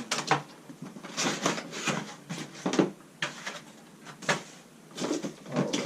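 Packaging being handled while a coffee machine is unboxed: irregular rustling of paper, cardboard and plastic, with a few sharper knocks.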